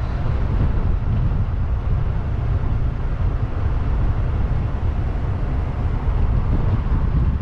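A car driving steadily, its road and engine noise mixed with heavy wind rumble buffeting the camera's microphone.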